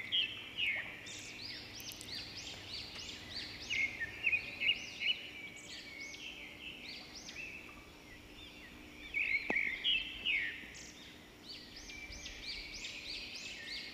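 Birds chirping in quick, repeated arching notes throughout, over the faint sizzle of lentil fritters frying in mustard oil in a kadai. A single sharp tap, like a spatula on the pan, comes about halfway through.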